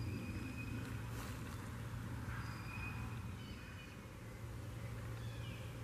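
Quiet woodland ambience: a steady low hum under faint hiss, with a few faint, short whistled bird notes scattered throughout.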